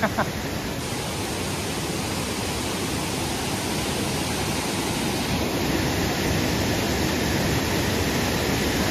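Waterfall: a steady rush of falling water, growing slightly louder about halfway through.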